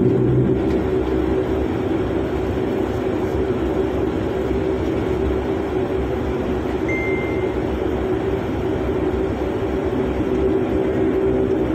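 Airliner's jet engines and cabin noise heard from inside the cabin as the plane rolls along the ground: a steady low hum and rush. A brief high beep sounds about seven seconds in.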